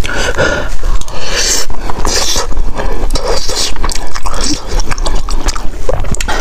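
Close-miked chewing and lip-smacking of spicy rice, with a metal spoon scraping and scooping in the plastic tray of a self-heating hotpot.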